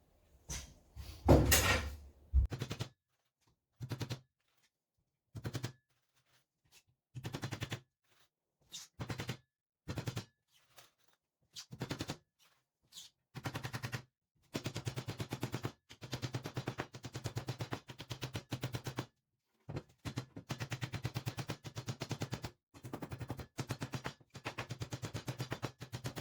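Hammer driving nails into the wooden walls of a beehive super box: runs of quick, sharp blows broken by short pauses, coming faster and more steadily in the second half.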